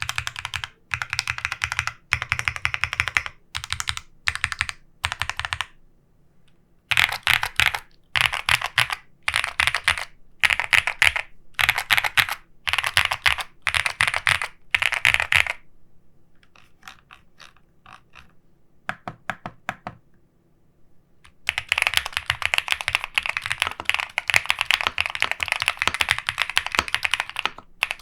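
EPOMAKER P75 mechanical keyboard being typed on, keystrokes clacking in quick runs with short pauses. A little past the middle the typing turns softer and sparser for a few seconds, then runs on as steady fast typing near the end.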